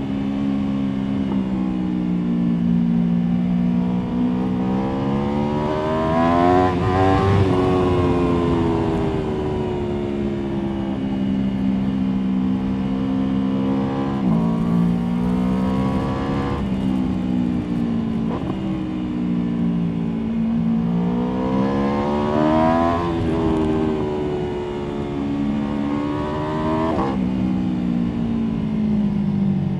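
Aprilia Tuono V4 motorcycle's V4 engine under way, revs rising and falling with the throttle. It climbs twice to a high-revving peak, about a quarter of the way in and again about three quarters in, then drops back, with sudden drops in pitch midway and near the end.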